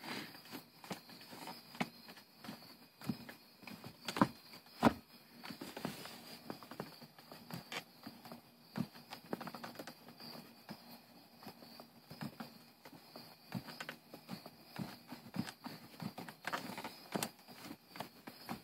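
Loose BMW gear shift lever being worked by hand, giving irregular clicks and clunks as it knocks about in its mount, with two louder knocks about four and five seconds in. The play and knocking are the sign of a loose shifter.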